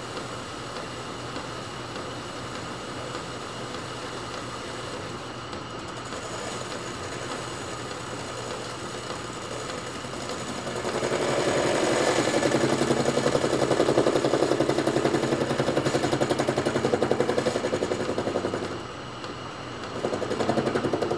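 Small metal lathe running steadily. About ten seconds in, a cutting tool takes a cut on the spinning workpiece, giving a louder, rapidly pulsing sound for about eight seconds, then a second brief cut near the end.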